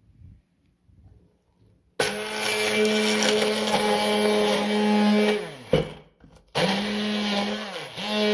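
Hand-held immersion blender running in a plastic beaker, chopping basil leaves and nuts. It starts about two seconds in and winds down with a falling pitch after about three seconds. It is switched on again a second later, dips briefly near the end and picks straight back up.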